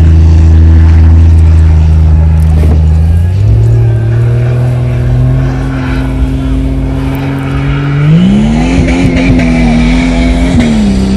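A vehicle engine running steadily under load, its pitch jumping up about three seconds in, then rising again about eight seconds in as it revs harder and settling back down near the end.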